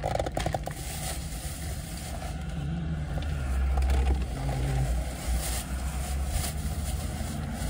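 Clothing rustling and body shifting on a car seat as a man searches his pockets, with scattered brief rustles and clicks. A low rumble runs underneath and swells for a second or so in the middle.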